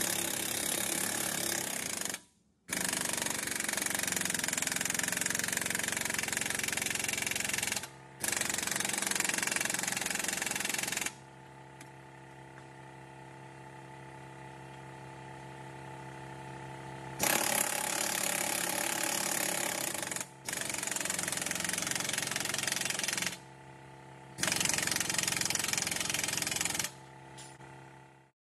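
Pneumatic impact wrench hammering in six long bursts of about two to five seconds each, separated by short breaks, running down the bolts at the walking beam end. A quieter steady hum carries through the gaps, the longest of them in the middle.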